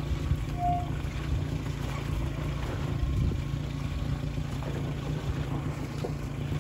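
Land Rover Series 3's 2.25-litre petrol engine running steadily off-road, with a few light knocks and a short squeak near the start.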